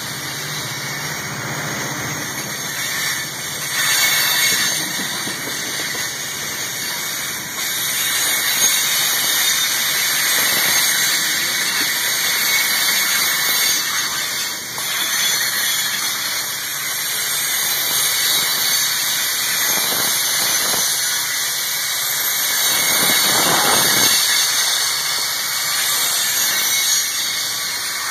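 Cars of a Buffalo & Pittsburgh Railroad freight train rolling past, steel wheels running on the rails with a continuous high squeal that swells and fades.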